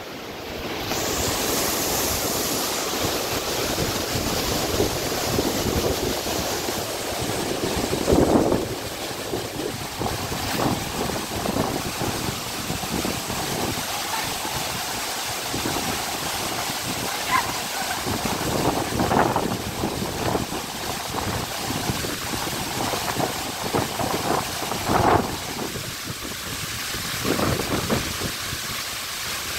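Waterfall and rocky cascading stream rushing steadily, with a few brief gusts of wind on the microphone.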